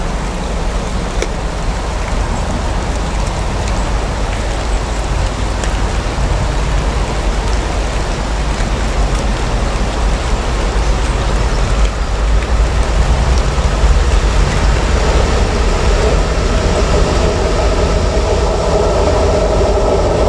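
Two Class 56 diesel locomotives, each with a Ruston-Paxman V16 engine, approaching through rain: a steady rumble under the hiss of rain, with the engines' drone growing louder and more tonal over the last few seconds as they draw close.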